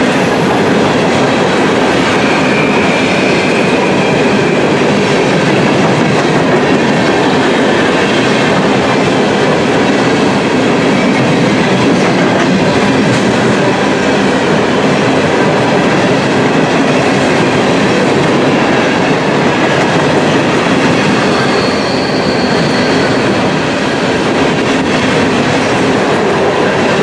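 Open-top coal hopper cars of a CSX freight train rolling past close by: a loud, steady rumble of steel wheels on rail. Faint, brief high wheel squeals come about two seconds in and again about twenty-two seconds in.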